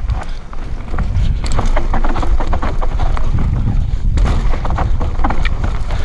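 Mountain bike running fast down a rough dirt trail: wind buffets the GoPro Hero 5 Session's microphone in a steady low rumble, over constant rattles, clicks and knocks from the bike and its tyres on the ground.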